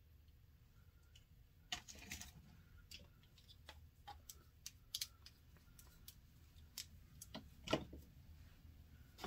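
Scattered small clicks, taps and light knocks of makeup tools and containers being handled and set down on a counter, with a few louder knocks about two seconds in, near the middle and near the end.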